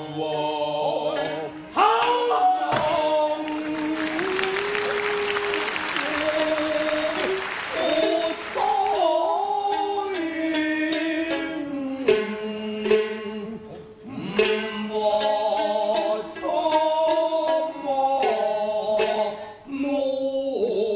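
Traditional kabuki stage music: a chanter sings long, sliding, held notes over plucked shamisen, with a few sharp wooden knocks, the loudest about two seconds in.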